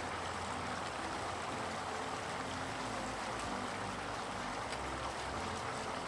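Liquid nitrogen in a metal bowl boiling very vigorously around a submerged Coke can as it draws the heat out of the can: a steady, even bubbling.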